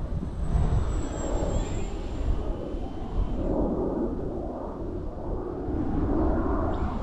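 Multiplex Blizzard electric RC plane in flight: a strong rushing wind noise with a faint, thin high motor whine above it that dips slightly in pitch about a second in.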